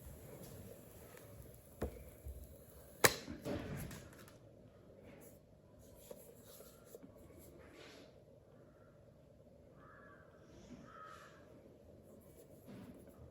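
Handling noises from unboxing a Mac mini and its packaging: a sharp click about three seconds in, followed by brief rustling, with a smaller knock shortly before it.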